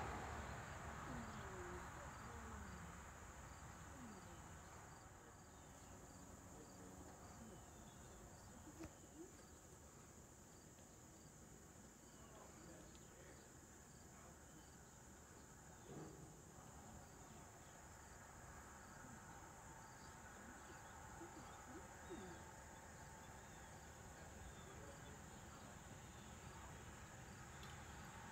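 Faint outdoor ambience: insects chirping in a steady, evenly repeating rhythm.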